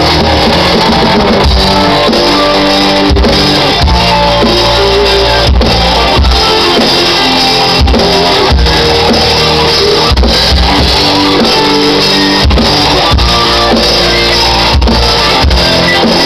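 Live rock band playing an instrumental passage with electric guitars and a drum kit, loud and without vocals.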